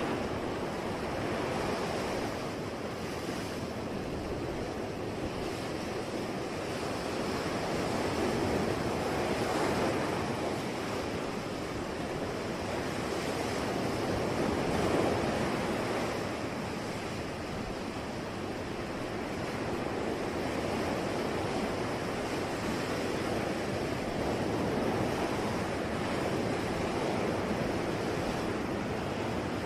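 Sea waves washing onto a shore, a steady rush of surf that swells and eases slowly every several seconds.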